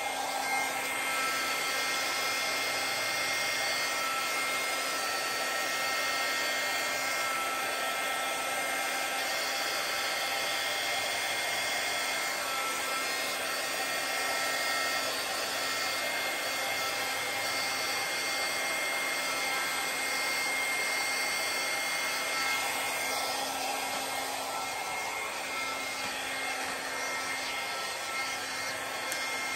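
Handheld hair dryer running on low, a steady rush of air with a faint whine, used to blow wet acrylic paint across a canvas in a Dutch pour.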